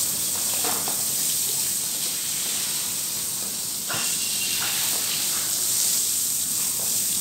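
Water jetting from a hose pipe and splashing onto a wet stone-tiled floor: a steady hiss of spray.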